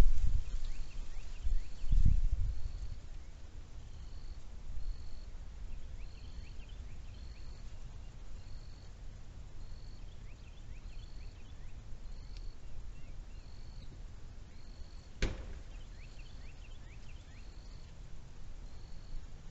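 Outdoor ambience with a short high call repeated steadily about every three quarters of a second, faint quick chirps among it, and low wind rumble on the microphone in the first couple of seconds. A single sharp click about fifteen seconds in.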